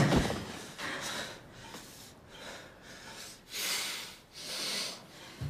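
A man breathing hard after a fistfight: a run of heavy, noisy breaths, the two longest near the end.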